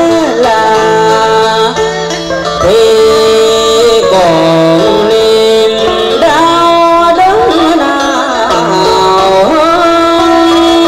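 Vietnamese cải lương singing through a handheld microphone, with sliding, ornamented vocal lines over a live band accompaniment that includes plucked strings.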